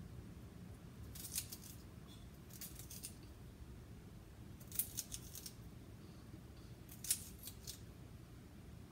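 Celery being cut into tiny pieces: four short bursts of quick, crisp cuts a couple of seconds apart, over a faint low hum.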